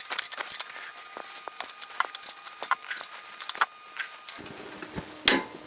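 Ratchet torque wrench being worked on an engine mounting bolt: irregular metallic clicking and clinking of the ratchet for about four seconds, then one louder single click near the end.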